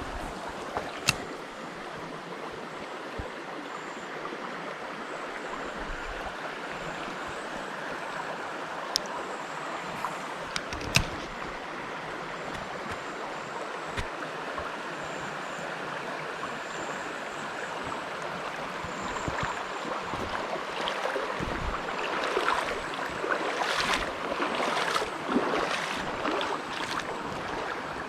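Trout stream running: a steady rush of flowing water, with a few sharp clicks, growing louder and more uneven in the last several seconds.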